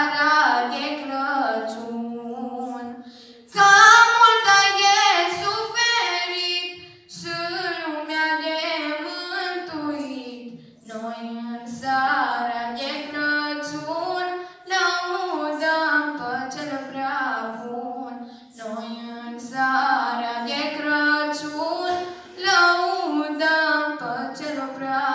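Female voices singing a Romanian Christmas carol (colindă) unaccompanied, in phrases of about four seconds with short breaths between them.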